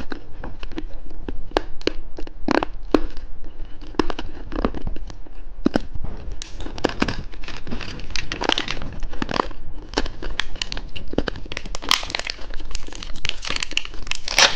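Plastic candy wrapper crinkling and tearing close to the microphone as a lollipop is unwrapped, with many sharp crackles and rustles.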